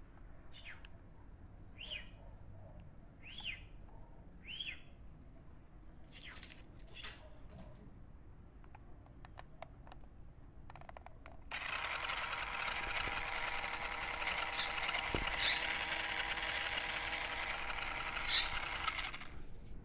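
Birds chirping for the first ten seconds or so. Then, about eleven seconds in, the battery-powered toy motorcycle's electric motor and drive gears start up and run steadily and much louder for about seven seconds before stopping.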